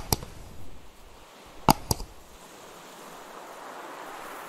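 Two sharp double clicks about a second and a half apart, mouse-click sound effects from a subscribe-button animation, over a steady hiss of gentle waves lapping on a beach.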